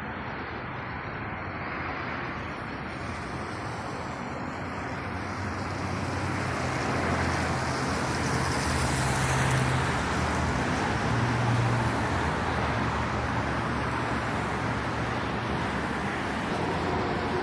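Road traffic on a city avenue: a steady wash of passing cars and tyre noise. It grows louder about six seconds in, with a vehicle's engine hum prominent for several seconds as it passes close by.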